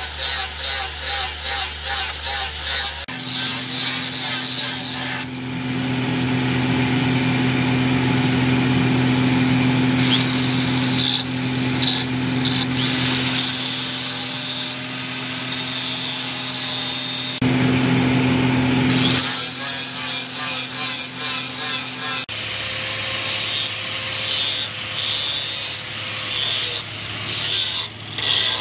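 Handheld electric angle grinder with an abrasive disc grinding a steel knife blade: the motor runs with a steady hum while the disc grates against the metal. Near the start and end the sound pulses in quick strokes as the disc is worked back and forth, and it changes abruptly several times between stretches of grinding.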